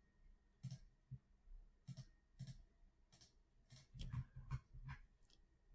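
Faint, irregular clicking of a computer mouse and keyboard, about a dozen short clicks with a quick run of them near the end.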